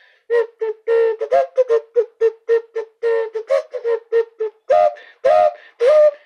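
A breast-shaped novelty whistle blown in a quick run of short toots on one note, about four a second, several of them bending upward in pitch, mostly in the second half.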